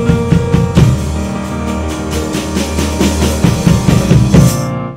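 Electronic keyboard and drum kit playing a rock jam together, with regular drum hits under held keyboard chords. Near the end a cymbal crash rings out and the playing stops.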